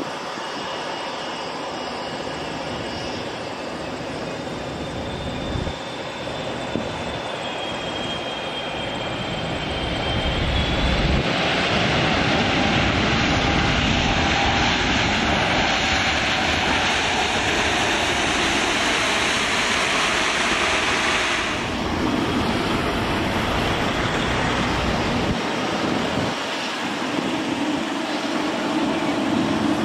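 Boeing 777 freighter's jet engines on landing: a steady engine whine on short final, swelling about a third of the way in to a loud rushing roar as the jet rolls out on the runway. The roar stops abruptly about two-thirds of the way through, and a lower drone from a Boeing 777-300ER on final approach takes over.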